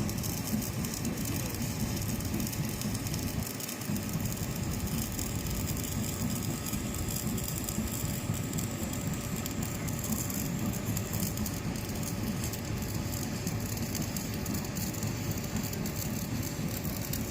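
Stick-welding arc from an E6013 electrode crackling steadily while laying the root pass that joins a 2-inch galvanized iron pipe to a socket flange.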